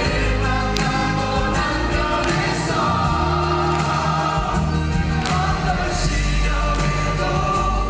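Stage musical cast singing together over full musical accompaniment, several voices holding sustained notes.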